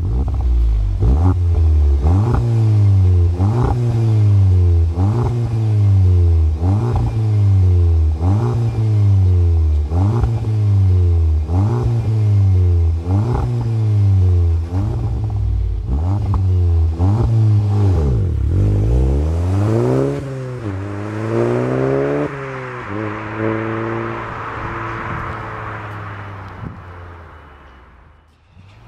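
Audi S1's 2.0-litre turbocharged four-cylinder through a resonated stainless steel cat-back sports exhaust, revved from the tailpipes in quick blips about once a second. Each blip is a sharp rise and a slower fall. Then come a few slower revs, and a steadier lower note that fades near the end.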